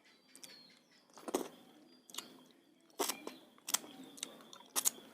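Close-up eating sounds: chewing with irregular sharp, wet smacks, about one every second.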